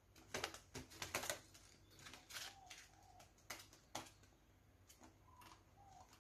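A cockatiel's claws and beak tapping and scratching on glossy paper and a plastic mirror: a quick run of sharp clicks and rustles at first, then a few single sharp taps, one about four seconds in as it pecks at the mirror. A few faint, short soft chirps sound between the taps.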